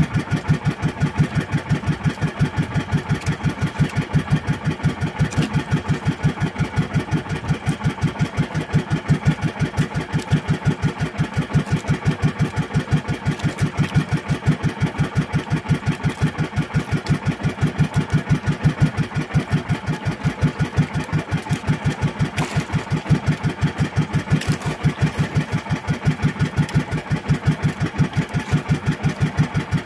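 Outrigger fishing boat's engine running steadily at constant speed, an even, rapid putter that does not change.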